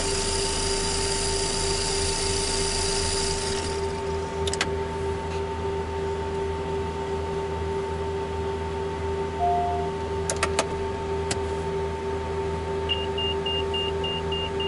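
Steady electrical hum and whine of a Cessna Citation M2's cockpit systems powered up with the engines not yet running, with a hiss that cuts off about three and a half seconds in. A few switch clicks, a short tone near ten seconds in and a quick run of high beeps near the end sound over it.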